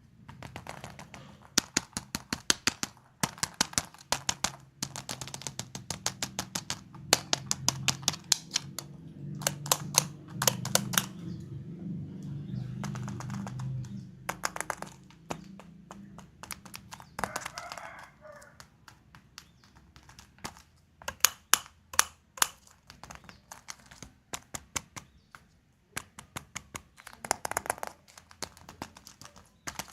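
Surprise-egg packaging being handled and opened: runs of sharp clicks and crackles of plastic and wrapper, with a low hum under the first half.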